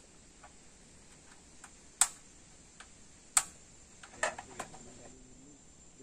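Portable butane camping stove being handled and set up: two sharp clicks about a second and a half apart, then a quick run of smaller clicks and knocks.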